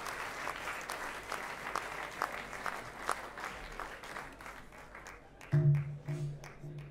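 Audience applause thinning out to scattered single claps. About five and a half seconds in, a loud low instrument note starts and is played again twice in short bursts.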